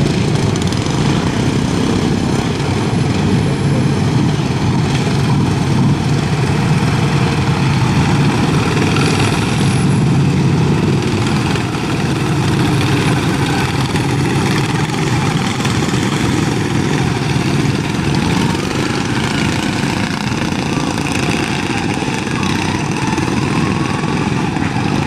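A pack of racing riding lawn mowers with small Briggs & Stratton engines running together at once, a loud steady drone of several motors.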